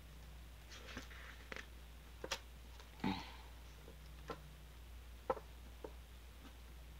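Faint handling of a paper greeting card: a few scattered light clicks and one short rustle about three seconds in, over a low steady hum.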